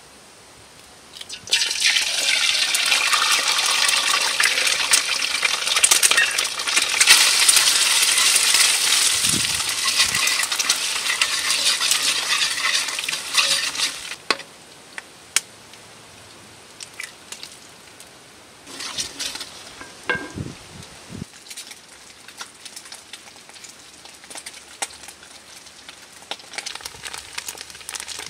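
Egg sizzling in hot oil in a metal wok, starting suddenly about a second and a half in and dropping off abruptly about halfway through. Afterwards, scattered clicks and scrapes of a spatula stirring the scrambled egg against the wok.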